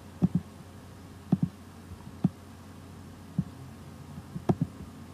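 A handful of short, soft clicks at irregular intervals over a low steady room hum, from a computer mouse being clicked while an on-screen video frame is dragged and resized.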